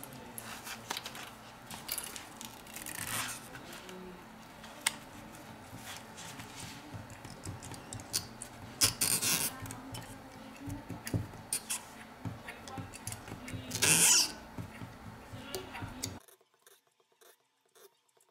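Small clicks, taps and scrapes of a precision screwdriver and fingers working on a smartphone's metal middle frame, with brief rustling bursts about nine and fourteen seconds in. The sound cuts off to near silence shortly before the end.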